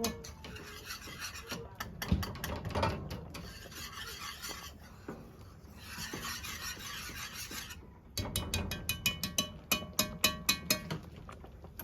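A spoon stirring and scraping through thick mango jam in a pot. Near the end comes a quick run of clinks as the spoon knocks against the metal pot.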